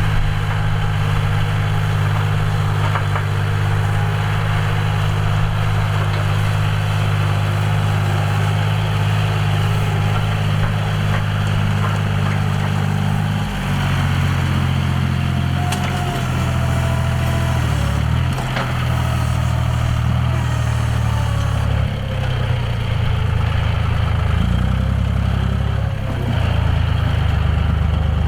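John Deere 5045D tractor's three-cylinder diesel engine running under load while ploughing. It holds a steady note for about half the time, then its pitch shifts up and down several times as the engine speed and load change.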